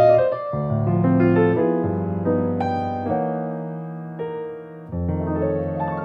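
Slow, gentle background piano music: chords struck every second or two and left to ring and fade.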